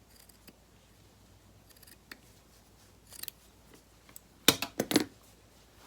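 Scissors snipping fabric: a quick run of sharp snips near the end, after a short rustle about three seconds in.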